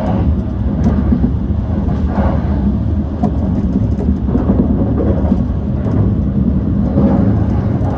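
JR E235-1000 series electric train running on the line, heard from inside the leading car: a steady low rumble of wheels on rail with a few faint clicks scattered through it.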